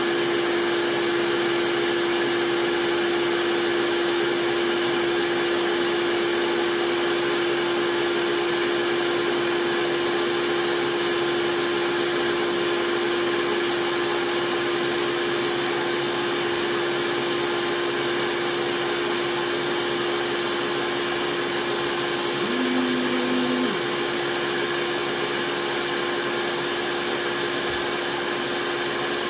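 Steady running of an electric motor: an even whooshing noise with a constant hum and a faint high whine, unchanging in pitch or level. A brief low tone joins it for about a second about three quarters of the way through.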